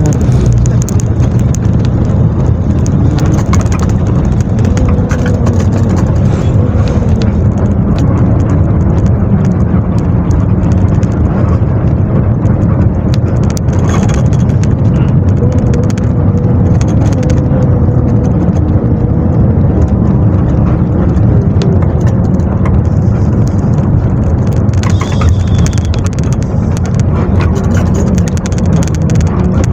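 Steady rumble of a long-distance bus's engine and tyres on the road, heard from inside the cabin while cruising, the engine note drifting slightly up and down.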